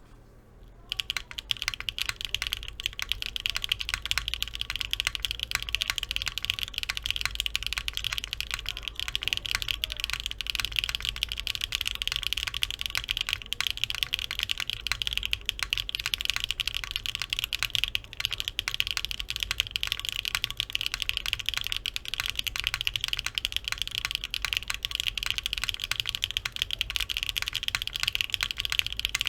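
Continuous fast typing on a gasket-mounted Neo65 keyboard with a polypropylene plate and Sillyworks Hyacinth v2u switches, lubed with 3203 on the stem rails, under doubleshot keycaps. A dense run of key clacks starts about a second in.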